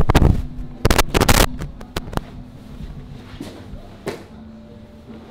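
Cotton jiu-jitsu gis rustling and bodies thudding on a grappling mat as two grapplers scramble and roll. Two loud clusters of rustles and thumps come at the start and again about a second in, with lighter scuffs after.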